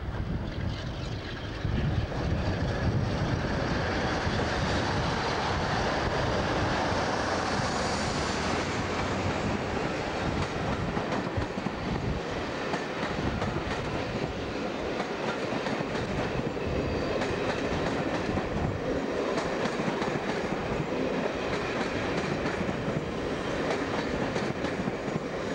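Class 47 diesel locomotive working uphill past at close range, then its train of coaches rolling by with the clatter of wheels over rail joints. There is a faint high wheel squeal about eight seconds in.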